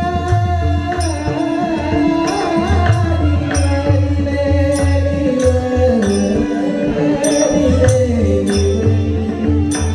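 A man singing a slow, ornamented devotional melody over a steady harmonium drone, with sharp hand-cymbal clashes and low drum beats keeping time.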